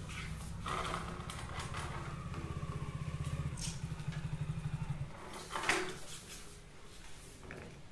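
A small engine running with a fast, even low putter, which stops about five seconds in. A brief rustle follows near six seconds.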